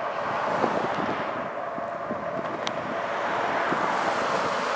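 Wind rushing over the microphone while riding a bicycle along a road, with a car passing close by about a second in.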